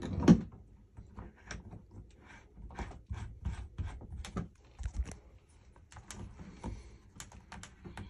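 Light, irregular clicking and tapping as the nut of a flexible metal shower hose is screwed by hand onto the shower valve outlet, a few clicks a second.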